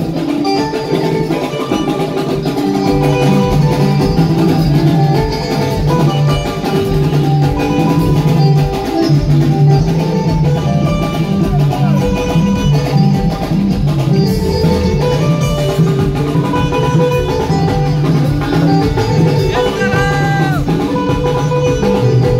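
Live band music with guitar and drums playing continuously.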